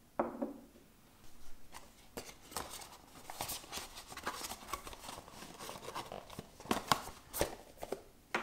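A porcelain mug knocks down onto a table with a short ring, then paper and cardboard packaging is handled, with crisp crinkling and scattered clicks and taps.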